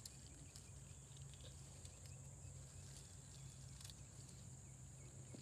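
Near silence with a faint, steady, high insect drone, and a few faint ticks.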